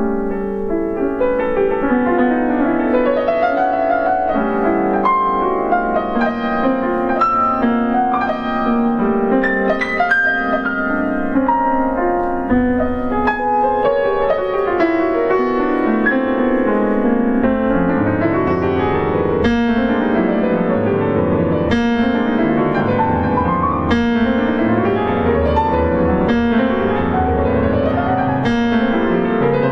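Solo grand piano playing a dense passage of many overlapping, ringing notes. In the second half low bass notes come in and quick rising runs repeat every couple of seconds.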